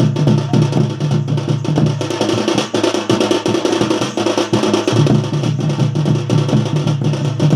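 Live folk drumming: barrel drums (dhol) struck with sticks and hands in a fast, even rhythm. A steady low drone runs underneath and fades for a couple of seconds in the middle.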